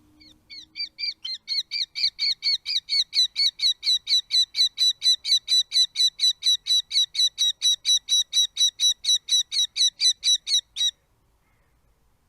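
A falcon calling: a rapid, even series of sharp repeated notes, about four a second, building up over the first second and then holding steady for about ten seconds before stopping abruptly.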